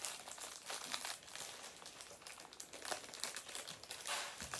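Plastic packaging crinkling and crackling in irregular handfuls as a toy figure is worked loose from its wrapping.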